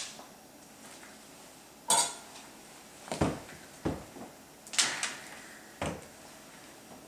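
Five separate clinks and knocks of kitchenware being handled, spaced roughly a second apart, each ringing briefly.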